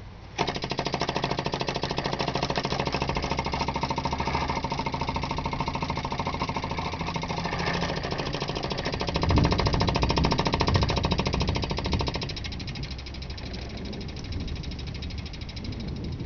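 Homemade thermal lag Stirling engine running fast, its glass-syringe piston with a magnet inside shuttling back and forth in a rapid, even knocking. The knocking starts abruptly about half a second in, is heaviest around ten seconds in, and drops in level about twelve seconds in. The builder puts the knock down to the piston pegging out against the end of the cylinder.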